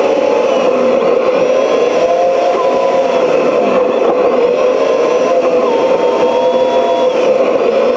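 Vehicle engine running steadily while driving at road speed, its pitch rising and falling slightly.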